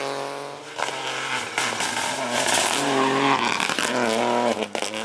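Rally car engine working hard, its pitch falling and rising again several times through gear changes, with a few sharp cracks in between.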